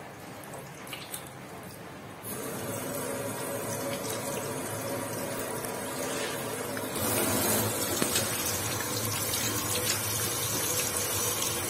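Water running from a tap into a sink as a raw chicken is rinsed under it. The flow grows louder about two seconds in and again about seven seconds in.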